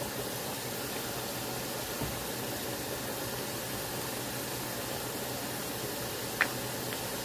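Steady hiss of a pot of black-eyed peas simmering on an electric stove burner, with a single clink of the stirring spoon against the enamelled cast-iron pot about six seconds in.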